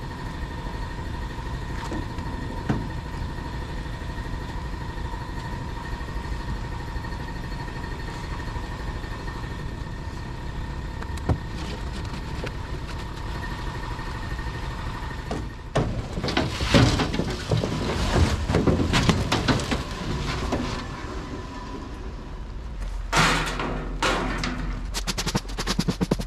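A car being unloaded from a trailer: a steady high whine over a rumbling bed for about fifteen seconds, then loud irregular metal rattling and clanking.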